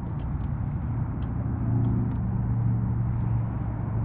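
An engine running steadily with a low hum that swells a little in the middle, with scattered faint light clicks over it.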